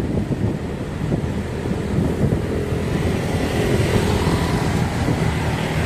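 Wind buffeting the microphone of a camera riding on a moving bicycle, a steady low rumble, with a motor vehicle running close by through the middle of it.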